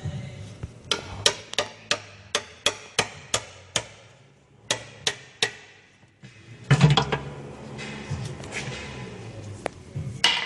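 A run of sharp knocks, about three a second, broken by short pauses, then a louder clatter about two-thirds through.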